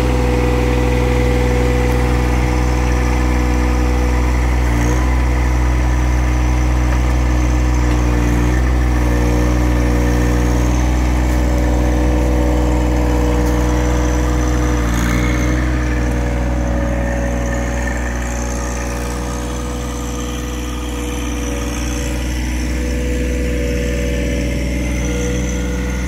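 Compact tractor engine running steadily while it powers the loader hydraulics working a tree spade; its note shifts briefly a few times.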